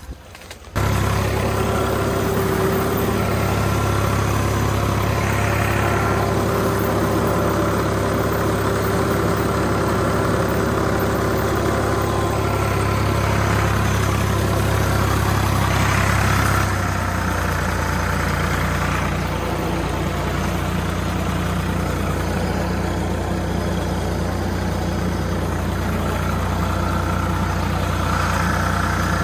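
Tractor engine running steadily, cutting in abruptly about a second in. Its low drone eases a little just past halfway through.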